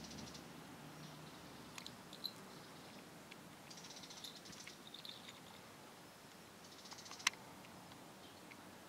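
Small jingle bells on a cat's collar jingling faintly in three short bursts as the cat moves, with a few single rings between, and one sharp click about seven seconds in.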